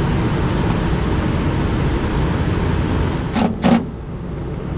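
Two brief bursts of a cordless drill driving the mounting screw of a new contactor, about three and a half seconds in, over a steady low rumble.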